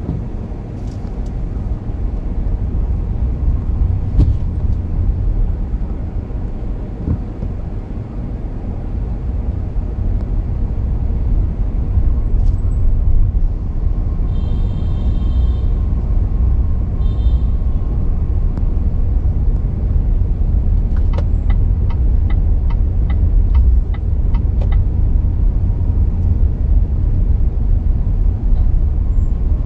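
Steady low rumble of a car driving through city streets. About halfway through there is a short high beep, and a little later a run of quick ticks, about three a second.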